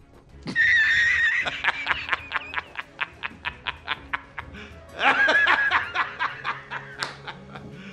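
A man laughing hard: a loud, high-pitched cry about half a second in, then a fast run of short "ha" bursts at about five a second that slowly fade, and a second loud burst of laughter about five seconds in.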